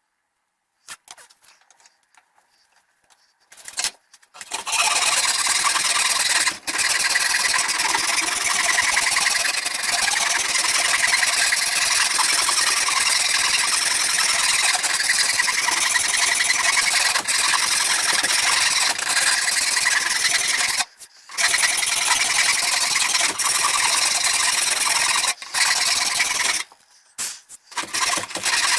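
A power tool sanding down oak handle scales: a dense, continuous rasping that starts about four seconds in and stops briefly a few times when the work is lifted off.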